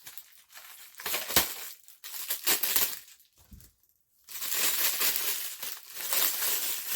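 Plastic packaging crinkling and rustling in bursts as a package is opened and handled, with a brief pause a little past halfway.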